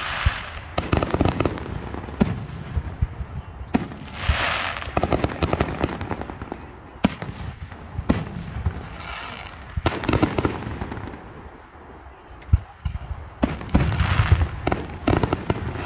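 Aerial fireworks display: many shells bursting with sharp bangs, coming in quick clusters. There is a short lull about twelve seconds in.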